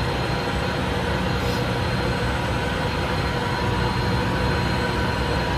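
Steady mechanical drone of running machinery, with a low hum and a few constant higher tones, unchanging throughout.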